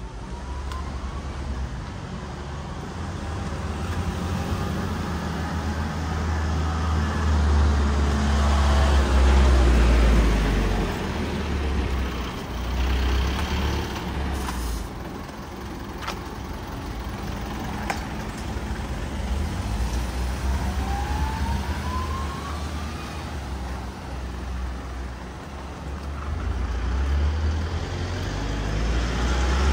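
A motor vehicle's engine running, a heavy low rumble that grows louder, eases off and swells again, with a brief rising whine about two-thirds of the way through.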